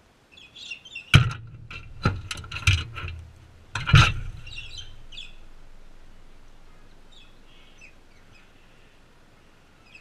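Heavy wingbeats of sulphur-crested cockatoos taking off close to the birdbath: four loud, sharp thumps between about one and four seconds in. Short chirping bird calls come just before and just after them.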